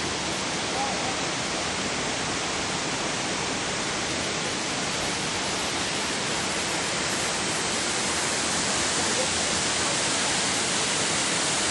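Ban Gioc waterfall: a steady rush of falling water, growing slightly louder toward the end.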